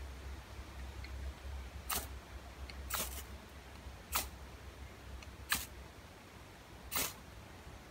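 Ferrocerium rod scraped hard five times, about a second apart, each stroke a short sharp rasp, throwing sparks onto a dried bark tinder bundle to light it.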